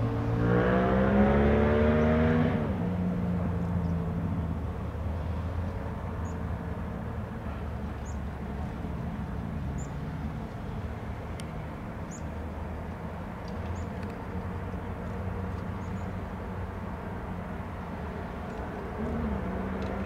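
A road vehicle's engine revs up over the first couple of seconds, its note rising in pitch, then falls back into a steady low rumble. Faint high chirps sound now and then over the rumble.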